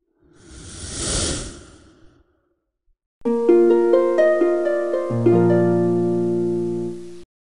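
A whoosh sound effect that swells and fades in the first two seconds. Then comes a short harp melody of plucked notes stepping along and ringing on, which is the loudest sound and cuts off suddenly near the end.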